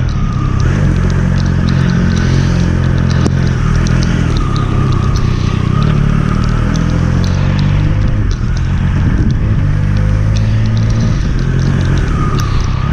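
Triumph Speed Triple 1200 RS's three-cylinder engine running at fairly steady revs while riding, with many small ticks over it.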